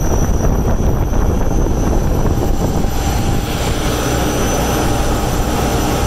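DRASH trailer's diesel generator and 12-ton Trane package unit running under load in cooling mode, with compressor, condenser fan and supply blower on: a steady, loud machinery drone. About three seconds in, a rush of air from the blower outlet grows stronger.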